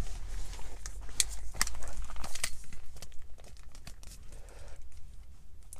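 Handling noise of an aviation headset being picked up and pulled on over the head: rustling with scattered small clicks and rubs from the ear cups and headband, busiest in the first three seconds and thinning out toward the end.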